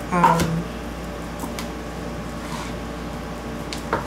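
Chef's knife chopping basil leaves on a cutting board: a few soft, spaced taps of the blade, the clearest near the end, over a steady background hum.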